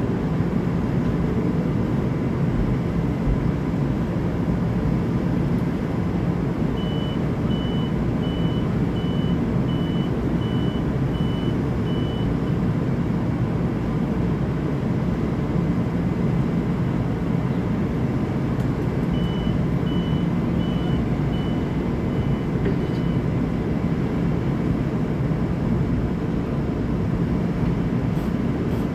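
M7 electric commuter train standing at the platform, its steady low hum running. Two runs of short, high beeps at one pitch, about one and a half a second, sound over it: about eight beeps, then some seconds later about six more.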